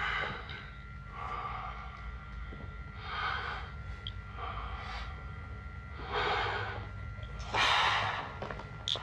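A man breathing deeply through a plastic oxygen mask, each breath in and out a hissing rush about every second and a half, the one near the end the loudest. A steady low hum and a faint steady whine lie underneath.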